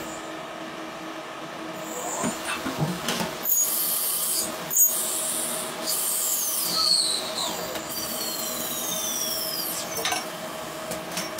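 CNC lathe cutting a metal part: a steady machine hum under the hiss and scrape of the tool cutting, with a couple of sharp clicks and several high whines that fall in pitch past the middle.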